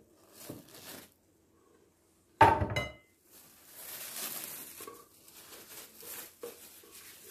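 Cling film rustling and crinkling as it is peeled off a set chocolate mosaic cake, with a dish set down hard about two and a half seconds in, a loud clink that rings briefly.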